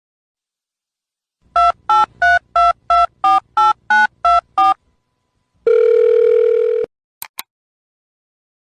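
Telephone keypad dialing tones: eleven short two-note beeps in quick, even succession, then a single steady tone lasting about a second, followed by two quick clicks.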